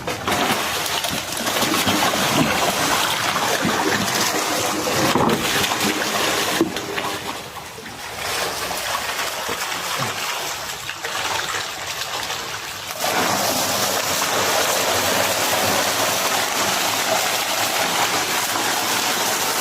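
Water splashing and sloshing steadily, easing off for a few seconds in the middle before picking up again.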